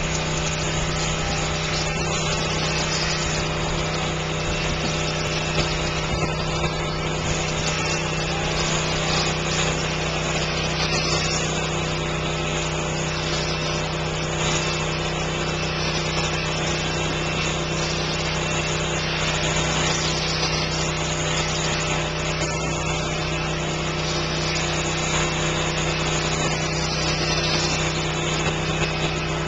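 Powered sheep-shearing machines running steadily as the shearers cut through fleece: a constant motor hum with several steady tones over a dense buzz.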